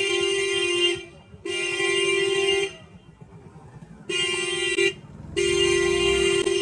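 Loud horn of a modified Hero Splendor motorcycle sounding in four blasts of one steady tone: a long blast that stops about a second in, a shorter one, a brief one, and another long one beginning past the middle.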